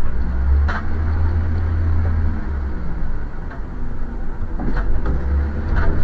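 Vehicle driving on the road: a steady, loud low rumble of road and engine noise, with a few short rattles or clicks.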